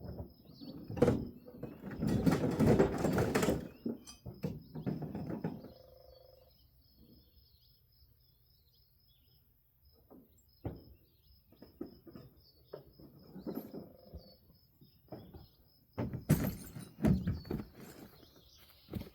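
Irregular knocks, scrapes and clatter of hand work on a jacked-up trailer wheel, loudest about a second in, for a stretch soon after, and again near the end. Through much of it an insect chirps in fast, even pulses.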